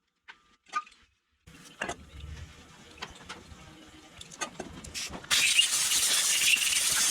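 Scattered clinks and handling knocks, then a loud, steady blast of compressed air hissing for about two seconds, starting near the end.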